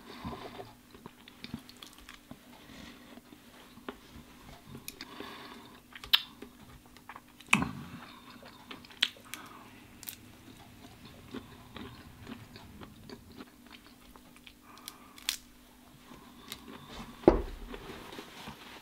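A man chewing food close to the microphone, with wet mouth smacks and scattered small clicks. A single low thump comes near the end.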